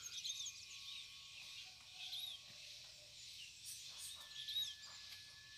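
Faint outdoor ambience of small birds chirping: short, high, arched chirps repeating every half second or so over a steady high hiss.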